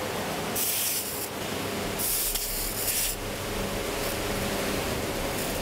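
Hot steel blade hissing as a blacksmith quenches it in a pot of cold water: two bursts of sizzling, about half a second in and again at about two seconds, each lasting about a second.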